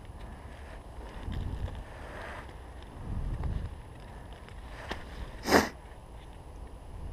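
Hands sifting loose soil and dry leaves in a freshly dug hole, with low rumbles on the microphone and one short, sharp noise about five and a half seconds in.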